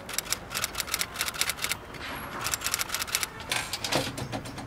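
Computer keyboard typing: quick, irregular keystroke clicks in two runs, with a short pause about two seconds in.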